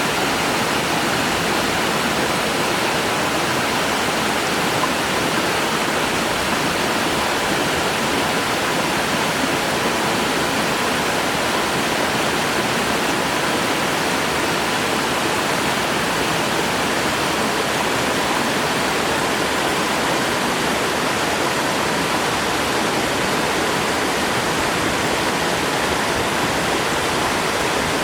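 Waterfall rushing: a loud, steady, unbroken sound of falling water.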